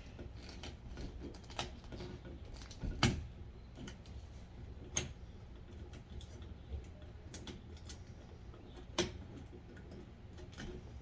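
Scattered small clicks and taps from hand work on a 240 V dryer outlet: wires being set into the terminals and a screwdriver tightening them. The loudest knocks come about 3, 5 and 9 seconds in.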